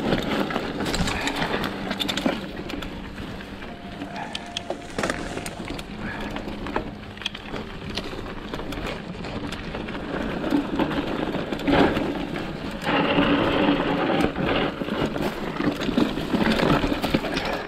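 Mountain bike rattling down a rough, rocky dirt trail: tyres rolling and crunching over rocks, with many sharp knocks from the bike and a steady mechanical buzz. It is louder about eleven seconds in and again a little later.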